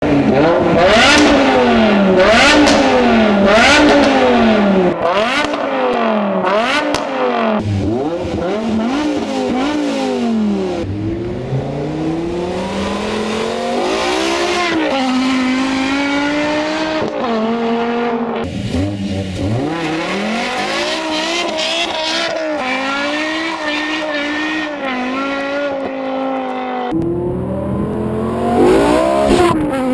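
BMW M6's V10 engine through an Eisenmann race exhaust and straight pipes, very loud. For the first several seconds it is revved in quick repeated blips, each one rising and falling. It then pulls through longer rising and falling sweeps as the car drives.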